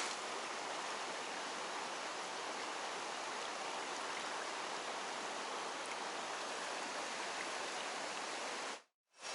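Mountain stream water rushing steadily, an even hiss of flowing water. It breaks off into a moment of silence near the end.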